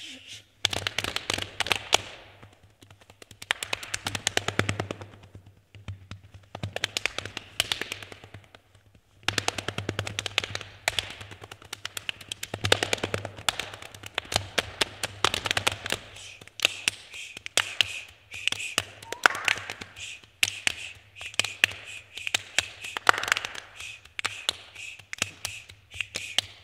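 Body percussion by four performers: quick, rhythmic clapping, finger snapping and slapping of chests and thighs in dense interlocking patterns, broken by a few short pauses in the first ten seconds.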